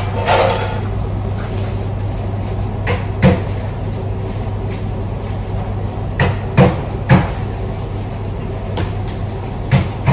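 Pizza dough being balled by hand: several sharp slaps and thuds over a steady low hum of kitchen machinery.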